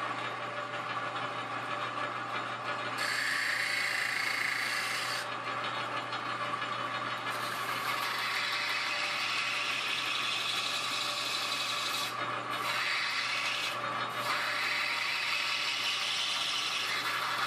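Benchtop 4-inch belt / 6-inch disc sander running with a steady motor hum while a small curved steel blade, cut from a reciprocating saw blade, is ground against the sanding belt. The grinding is a rasping hiss that grows brighter as the blade is pressed in and eases off briefly twice in the second half.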